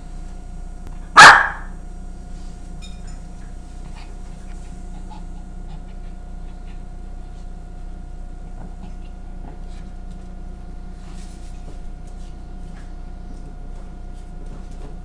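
A Shih Tzu barking once, a single loud, sharp bark about a second in; afterwards only a faint steady hum and a few soft clicks.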